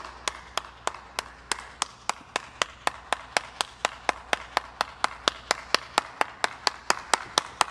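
One person clapping hands at a steady, even pace, about three to four claps a second.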